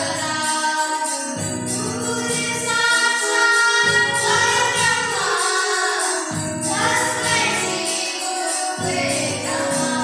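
Children singing together, accompanied by a Yamaha electronic keyboard playing chords over a steady high percussion beat.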